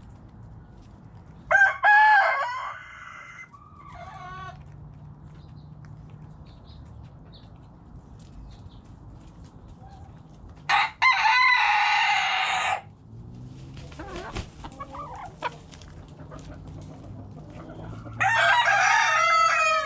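White Leghorn rooster crowing three times, each crow about two seconds long and several seconds apart, the last cut off at the end. Softer, short hen clucks come between the crows.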